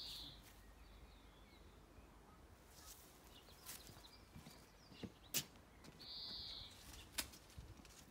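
Quiet garden background with two short, high, steady bird notes, one at the start and one about six seconds in, and a few sharp clicks a little after five seconds in.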